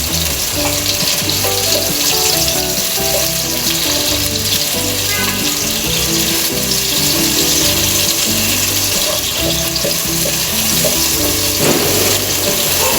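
Chopped onion and garlic frying in hot oil in a pan, a steady sizzle, with background music alongside.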